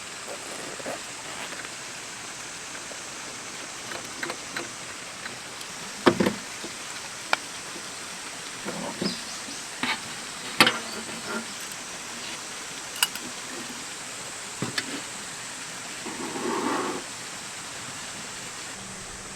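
Camp gear being handled: scattered sharp clicks, taps and knocks, with a brief scrape or rustle near the end, over a steady background hiss.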